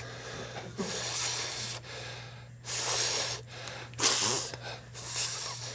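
A man breathing hard through his open mouth: four loud, hissing breaths and gasps about a second apart as he strains to bring on a sneeze.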